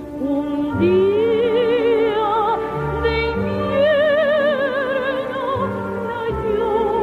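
Operatic singing in a high voice, long held notes with wide vibrato, over instrumental accompaniment.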